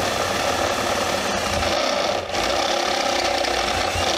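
Handheld power drill running a step drill bit through a sheet-metal panel, steadily enlarging an eighth-inch pilot hole, easing off briefly about two seconds in.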